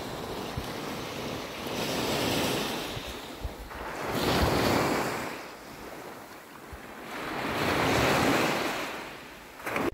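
Small waves breaking and washing up a sandy beach, the wash swelling and ebbing three times, with wind buffeting the microphone.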